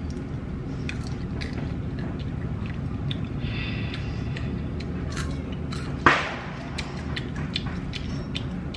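Someone chewing freshly popped popcorn kernels: small crunches and mouth clicks over a steady low hum, with one sudden, louder thump about six seconds in.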